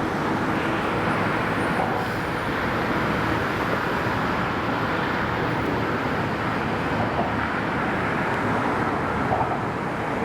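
Steady din of road traffic crossing the Brooklyn Bridge: a continuous, even hum of tyres and engines with no single vehicle standing out.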